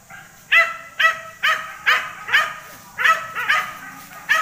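Pig-hunting dog barking in a quick series, about two sharp barks a second, starting about half a second in.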